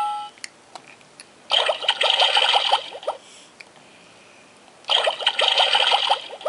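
An electronic sound book's small speaker plays a short, noisy, crackly sound effect twice, each burst lasting a little over a second.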